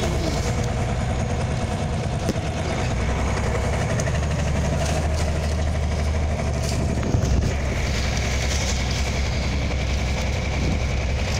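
Scania OmniLink CL94UB city bus heard from inside the passenger cabin: the rear engine runs with a steady low drone that grows stronger for a few seconds in the middle, with a short knock about seven seconds in.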